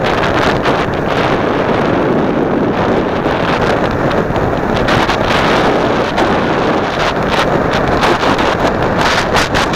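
Wind rushing over the microphone of a skier's camera while skiing downhill, a loud steady roar, with a few short sharp scrapes near the end, likely from the skis on the snow.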